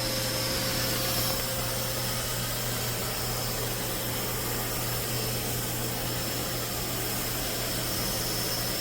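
Narwal Freo X Plus robot vacuum running on carpet: a steady suction fan noise with a low hum and a faint high whine.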